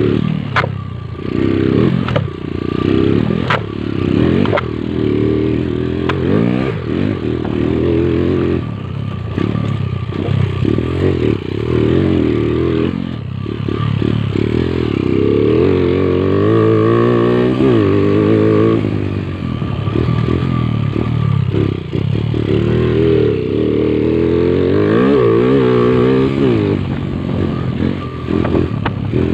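Motorcycle engine running under way, its pitch rising and falling as the throttle is opened and closed, with some clattering knocks in the first few seconds.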